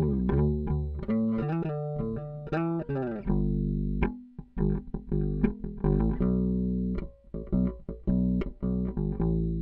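Squier Vintage Modified Jaguar Bass played fingerstyle through its bridge Jazz Bass pickup alone. A riff of plucked bass notes with a few bent notes, a brief pause about four seconds in, then quicker repeated notes.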